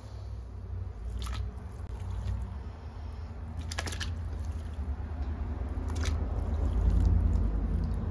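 Chunks of raw pork tipped from a bowl and dropped by hand into a large pot of hot water: wet, squishy plopping and handling, with a few sharp clicks, the loudest about four seconds in, over a steady low rumble that grows near the end.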